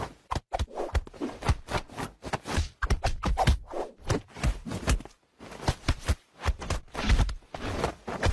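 A hand patting and pushing at a cat's head while the cat swats back with its paws: a fast, irregular run of taps, thumps and rustles, with no steady rhythm.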